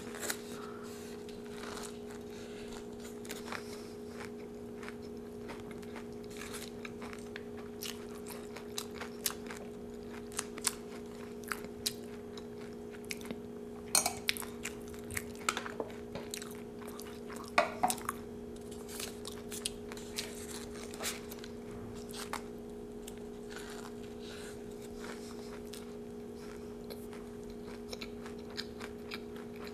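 Close-up chewing and crunching of a crisp taco, with scattered crackles. A metal spoon clinks against a pot a couple of times midway. A steady low hum runs underneath.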